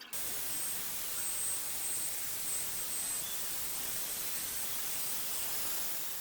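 A steady, even hiss that starts suddenly and fades away near the end, with a faint thin high whistle running through it.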